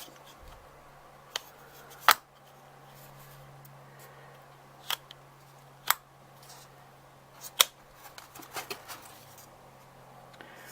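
Sharp, scattered clicks and taps of a compact Sony Cyber-shot DSC-TX30 camera and its packaging being handled, with a cluster of smaller ticks near the end, over a steady low hum.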